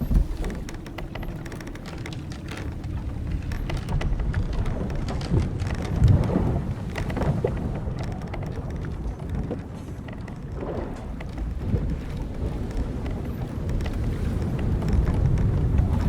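Old wooden sailboat at sea: a low rumble of wind and waves that swells and eases every few seconds, with scattered creaks and knocks from the hull timbers and rigging.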